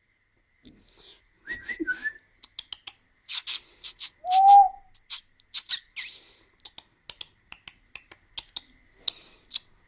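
Pet parrot calling: a string of short clicks, chirps and squeaky notes, the loudest a brief whistle that rises and falls about four and a half seconds in.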